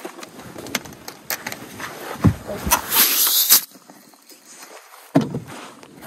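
Scattered knocks and bumps against an aluminium boat hull, with a loud burst of rustling hiss about three seconds in and another knock near the end. This is handling and movement noise as the camera and gear are shifted around the boat during a fish fight.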